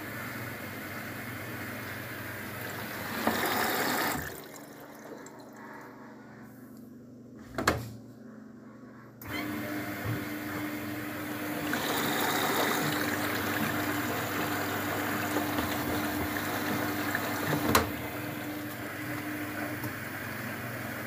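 Luxor WM 1042 washing machine filling with water at the start of a 90°C cotton drum-clean cycle. Quieter sounds and a sharp click give way, about nine seconds in, to a louder steady rush of incoming water with a hum.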